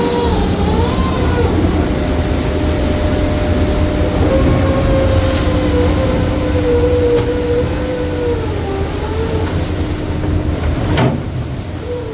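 Crab boat machinery running: a steady low rumble under a whine that wavers up and down in pitch, with one sharp knock near the end.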